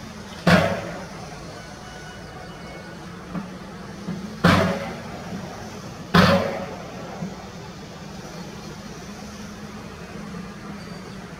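Steady low hum of an approaching electric locomotive, broken three times by sharp, loud bangs, each dying away over about half a second: about half a second in, and again about four and a half and six seconds in.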